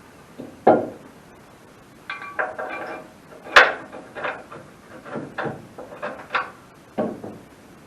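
Metal parts clanking and knocking as an outrigger is fitted onto a sawmill: a string of irregular knocks, with some ringing clatter and then a sharp bang about three and a half seconds in.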